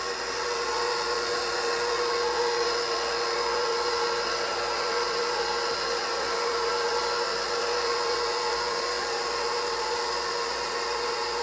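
Electric mixer running at a steady speed with an even motor hum, beating a pudding and Cool Whip mixture.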